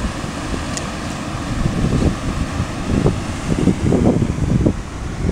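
Wind gusting against the microphone in irregular low buffets, over a steady rush of river water pouring through a weir.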